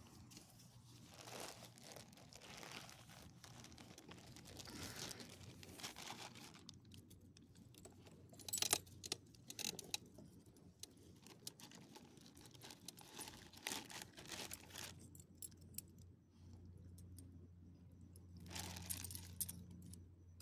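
Metal ID tags jingling on a small dog's collar, with scattered clicks and rustles; the loudest is a sharp cluster of clicks about eight seconds in.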